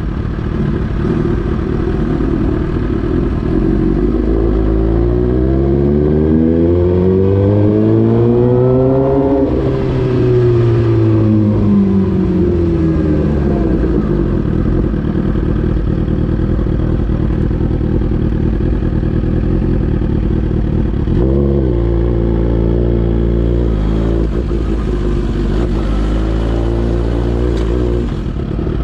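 Suzuki GSX-R1000 inline-four engine through an Austin Racing aftermarket muffler: the pitch climbs smoothly for about six seconds and then falls back. It then runs steadily, with a few short throttle blips in the last third.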